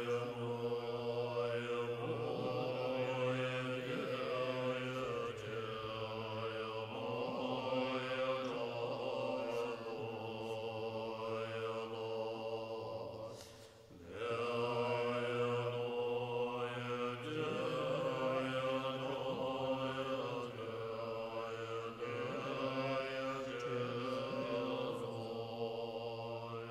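Tibetan Buddhist monks chanting a mantra in a deep, sustained drone. The chant breaks off briefly about halfway through and then resumes.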